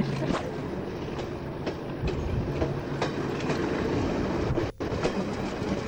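Green passenger train coaches rolling past close by, with a steady rumble and the wheels clicking over the rail joints. The sound drops out for an instant near the end.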